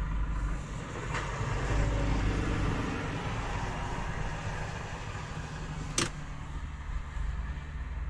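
A diesel semi truck driving slowly past, heard through the closed cab of a parked truck: its engine and tyre noise swell about two seconds in and fade away over a steady low rumble. A single sharp click about six seconds in.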